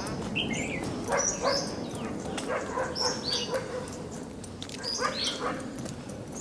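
A dog barking repeatedly, with short barks coming in pairs every second or two.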